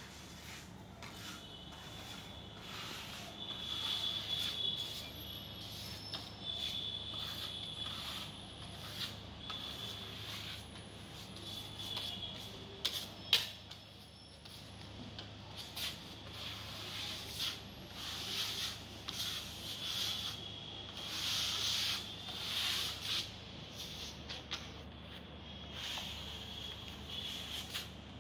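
Steel hand trowels scraping and smoothing screeding paste across a wall in repeated irregular strokes, with a sharp knock about thirteen seconds in.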